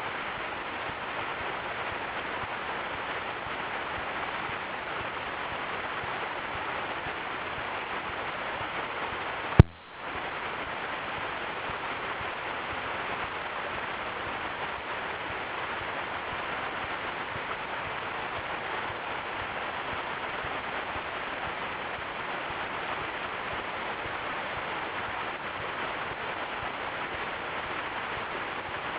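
Waterfall, the steady rush of falling water. A single sharp click about ten seconds in, after which the sound drops out for a moment and comes back.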